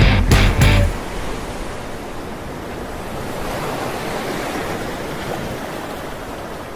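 Sea surf: a steady wash of waves that swells gently and then slowly fades. The music stops about a second in.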